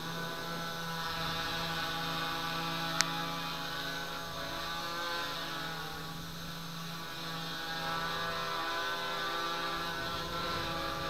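DJI F330-clone quadcopter hovering: its four brushless motors and propellers give a steady multi-tone hum whose pitches drift slightly as the flight controller trims motor speeds. A single sharp click sounds about three seconds in.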